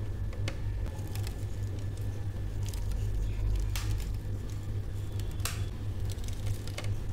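Soft, scattered clicks and patters as pinches of chopped coriander and dried chilli flakes are rubbed between the fingers and dropped onto samosas and chaat, over a steady low hum.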